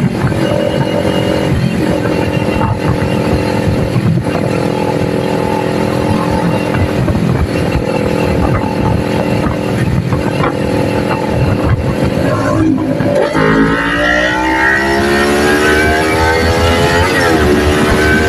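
Kawasaki Ninja 400 parallel-twin engine cruising at steady revs. About thirteen seconds in, the revs dip and then climb under acceleration. Near the end a gear change drops the pitch, and it climbs again.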